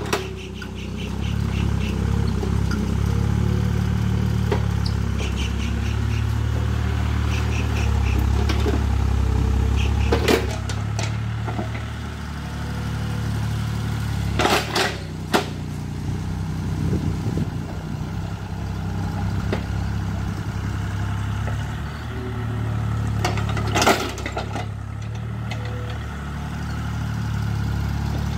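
Hitachi EX30 mini excavator's diesel engine running steadily as it digs dirt, with three sharp knocks spaced several seconds apart from the bucket and arm working the soil and rocks.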